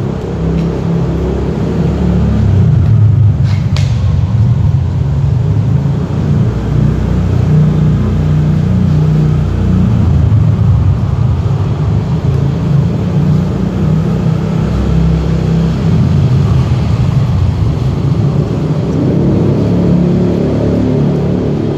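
Loud, steady low rumble, with a brief sharp click about three and a half seconds in.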